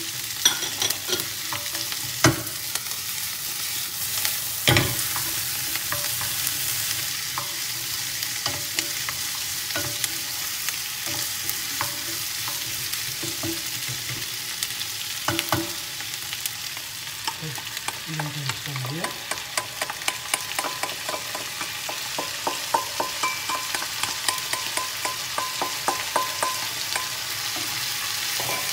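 Sliced onion, garlic, celery, carrot and potato sizzling in olive oil in a frying pan while a wooden spoon stirs them, knocking and scraping against the pan. A few louder knocks come in the first five seconds, and a quick run of light taps in the second half.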